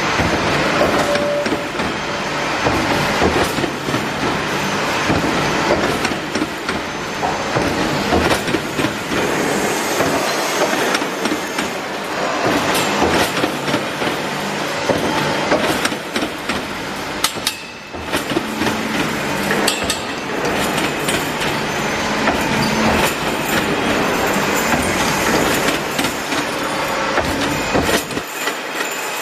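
Hexagonal wire netting weaving machine running, a steady loud mechanical rattle thick with rapid metallic clicks and knocks from its twisting and feed mechanism.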